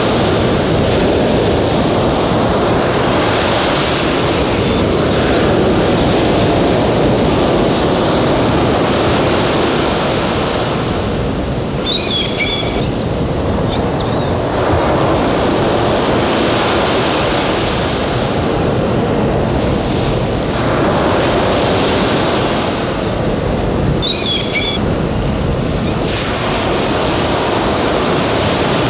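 Sea surf washing in swells that rise and fall every few seconds, with short bird calls twice, about twelve seconds apart. It is a recorded seashore soundscape played as the show's soundtrack.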